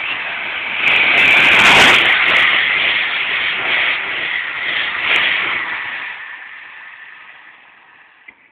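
An electric multiple unit passing through the station at speed: a loud rush of wheels on rail and air that peaks about two seconds in, then fades steadily away as the train recedes.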